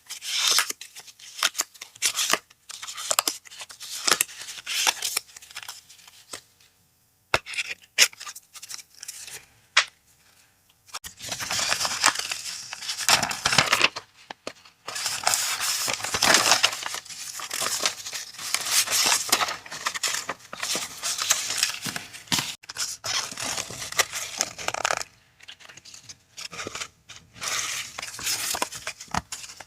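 Paper and packaging being unwrapped and handled: irregular rustling, crinkling and tearing with occasional sharp clicks. It pauses briefly twice in the first half and turns denser and more continuous in the second half.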